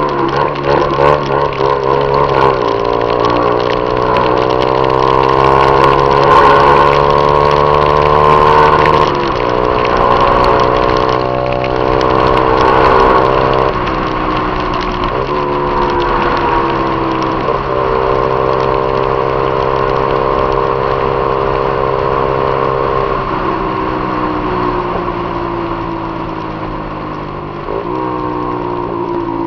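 Honda CG 150 Titan single-cylinder four-stroke motorcycle engine running under way through an aftermarket Viúva Negra exhaust. Its note holds or climbs slowly, then shifts abruptly several times with gear changes and throttle, under steady wind and road noise.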